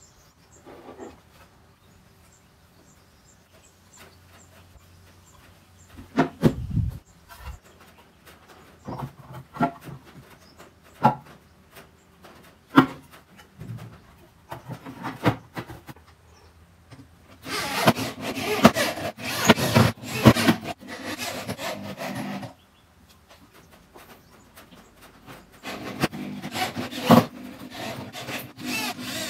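Knocks and clicks of a speaker being fitted into a wooden cabinet, with one heavy thud about a quarter of the way in. Then an electric drill drives screws into the cabinet in two long rasping stretches, the second running through the end.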